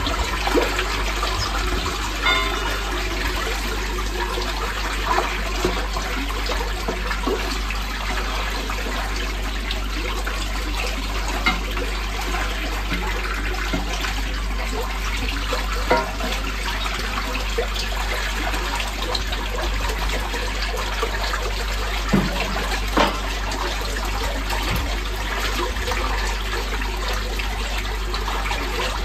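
Sewage rushing and gurgling steadily through a manhole chamber's channel as a drain blockage clears and the backed-up water drains away. A few short knocks stand out, two of them close together near the end.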